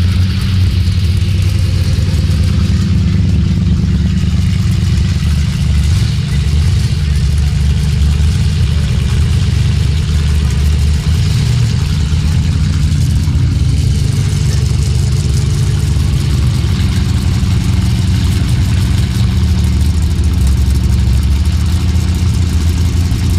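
Modified street-race Ford Mustang V8 engines idling at the start line: a loud, steady, low rumble with an uneven pulse.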